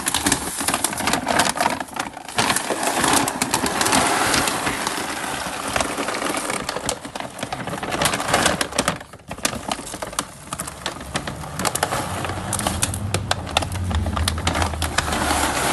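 A bag of dry cat food being handled and kibble poured out: dense crinkling and rattling with many sharp clicks, broken by a brief pause about nine seconds in.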